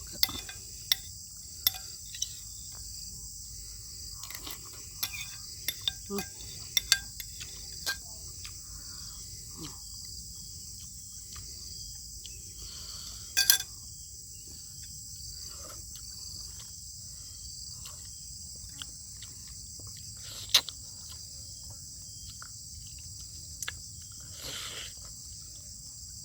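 Eating sounds: scattered sharp clicks and taps of a spoon against the bowl and bone, with soft chewing and slurping, the loudest click about 13 seconds in. Under them runs a steady high-pitched chirring, like an insect chorus.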